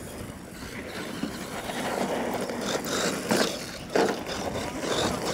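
Radio-controlled monster truck driving across a dirt track, its motor and tyres running on the dirt, with a few sharp knocks about three and four seconds in as the truck bounces.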